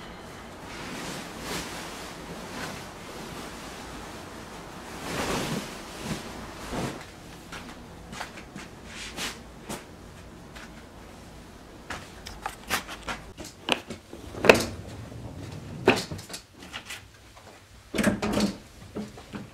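Rustling of a duvet and pillows as a bed is made, followed by a run of sharp clicks and knocks in the second half, loudest about halfway through, from things handled around the room, including a hard-shell suitcase.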